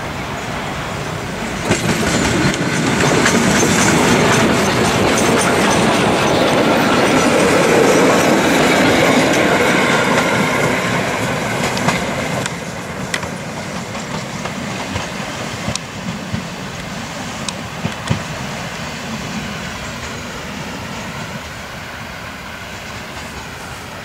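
Pt47 steam locomotive and its passenger coaches passing close by, with wheels clattering over the rail joints. The roar rises sharply about two seconds in and is loudest as the engine and coaches go past. It drops off abruptly partway through, leaving a few sharp wheel clicks as the train pulls away and fades.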